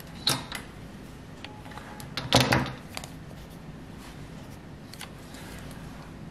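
A metal drawing compass being picked up and handled on a desk: a few light knocks and clicks, the loudest about two and a half seconds in, then faint ticks of the hinge as it is adjusted.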